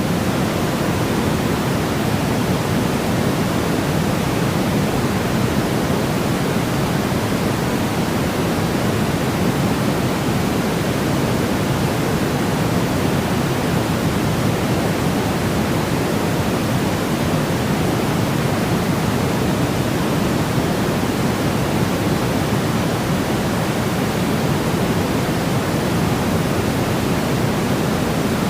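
Steady sleep-aid white noise for lulling a baby to sleep: an even, unchanging hiss weighted toward the low end.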